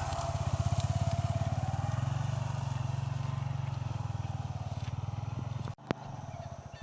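Motorcycle engine running, with a fast, even firing rhythm. About six seconds in the sound cuts out abruptly and comes back quieter.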